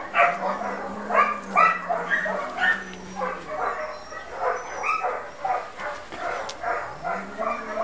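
Dog whining and yipping in short repeated cries, about two a second.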